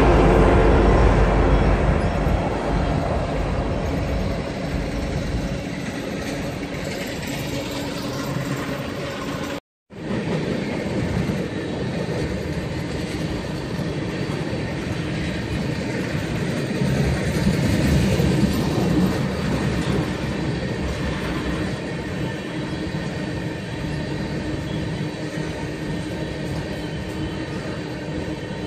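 Norfolk Southern freight train rolling past: a steady noise of railcar wheels on steel rails, deepest and loudest in the first couple of seconds. The sound cuts out for a moment a little under ten seconds in, then carries on.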